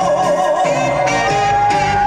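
Live pop singing with band accompaniment: a long steady note is held over the backing.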